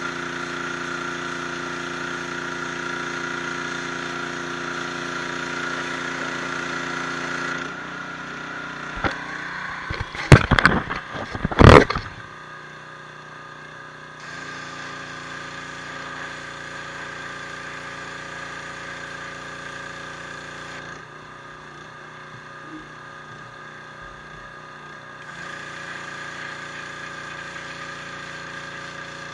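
Pressure washer running steadily, its motor-and-pump hum shifting in tone and level several times. A cluster of loud knocks sounds about ten to twelve seconds in.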